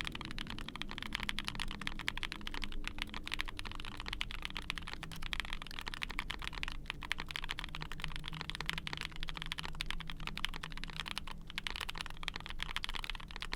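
Fast, continuous typing on an Ai03 Vega mechanical keyboard with a POM plate and GMK keycaps, its keys fitted with lubed linear 'BCP' frankenswitches (OP black bottom housing, Tecsee carrot POM stem, Cherry Hyperglide top). The strokes come densely and without a break.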